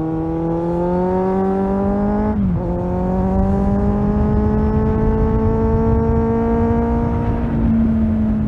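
Kawasaki Z800 inline-four motorcycle engine pulling under light throttle, its pitch rising slowly, with a quick dip for an upshift about two seconds in, then climbing gently again and levelling off near the end, over low wind rush.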